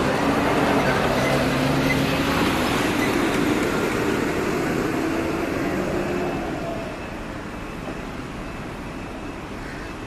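Road traffic noise with a vehicle engine's steady hum, louder for the first six or so seconds and then dropping away, picked up through a cycling dashcam's built-in microphone.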